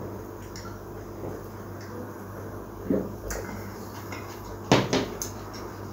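A glass bottle and a drinking glass set down on a table top: a soft knock about three seconds in, then two sharper knocks in quick succession near the end, over a steady low hum.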